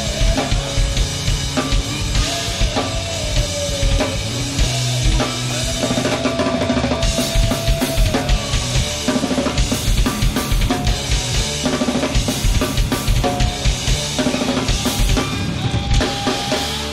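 Acoustic drum kit played hard and fast, with dense bass drum, snare and Sabian cymbal crashes, over the rest of the band's heavy rock song with long held notes.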